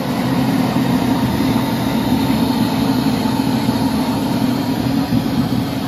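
Hand-built 7.25-inch-gauge live-steam locomotive running with its driving wheels turning on the rollers of its display stand. It makes a loud, steady rushing noise that starts suddenly.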